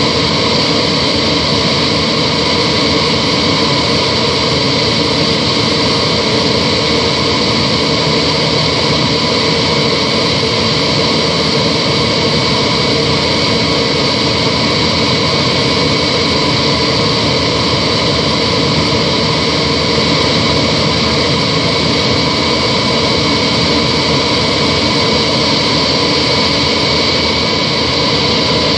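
Steady cabin noise of a Yak-42 airliner in flight: an even rush of air with the whine of its three Lotarev D-36 turbofan engines running at a constant setting.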